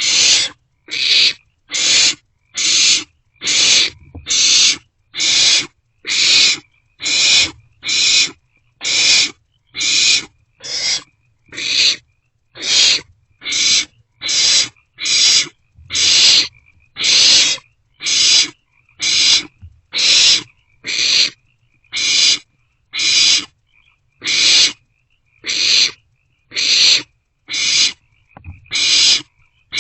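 Barn owlet begging calls: a harsh, rasping hiss repeated steadily about once a second.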